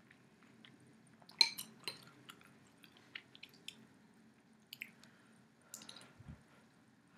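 Close-up eating sounds of chicken soup: scattered wet clicks and smacks from chewing, the loudest a sharp click about a second and a half in. A short slurp from the spoon comes near the end.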